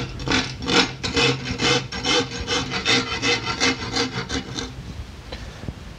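Farrier's rasp filing the sharp back edge of a hickory board bow, rounding over the corner in quick, even strokes about three a second. The rasping stops shortly before the end.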